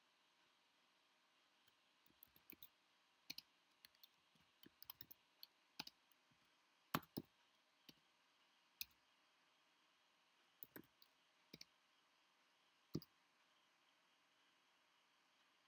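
Computer keyboard keys being typed: faint, irregular clicks in short runs, stopping about 13 seconds in.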